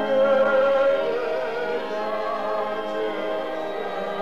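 Church organ playing sustained chords, with a voice singing a hymn-like melody over them for the first few seconds.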